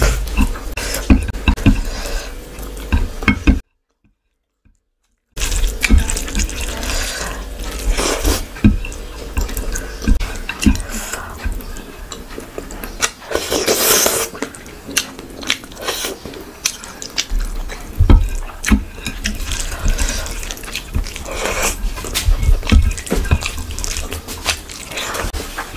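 Close-miked eating sounds: fingers squishing and mixing rice with curry on a plate, along with wet chewing and lip smacks, many small clicks and squelches. About four seconds in, the sound drops out completely for about a second and a half.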